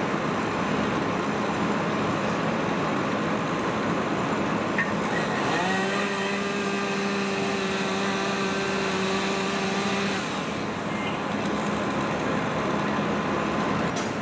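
Steady mechanical drone of fire apparatus engines running at a working fire. A steady droning tone rises in about five and a half seconds in, holds, and drops out at about ten seconds.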